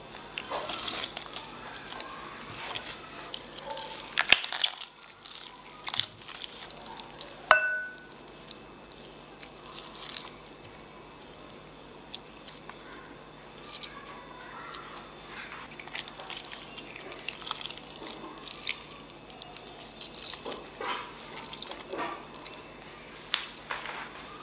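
Boiled chicken being torn apart and shredded by hand: wet, squishy tearing and pulling of meat and skin off the bone, with scattered sharp clicks. One clink about seven and a half seconds in rings briefly against the glass bowl.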